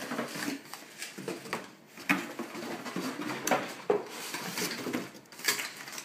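Cardboard packaging being handled as a boxed toaster is unpacked: rustling and scraping of box flaps and inserts, with a few short knocks scattered through.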